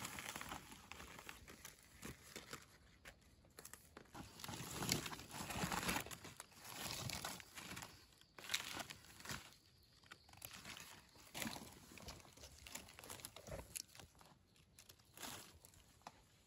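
Dry fallen leaves crackling and rustling on and off as gloved hands rummage through the leaf litter and the forager moves about on it.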